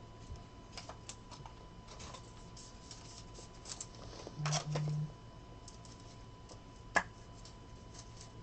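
Faint, irregular light clicks and taps from hands at a table, with a short low hum about four and a half seconds in and one sharper click about seven seconds in.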